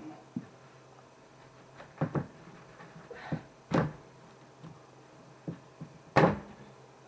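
Scattered knocks and thuds of cabinet panels and parts being handled and fitted together during flat-pack cabinet assembly, the loudest a little after six seconds in.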